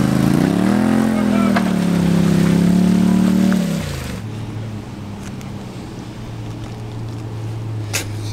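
A car engine revs up under load as one vehicle pulls a stuck car out of the mud on a tow line. It holds the revs for a few seconds, then drops back to a low steady idle about four seconds in, with a single sharp click near the end.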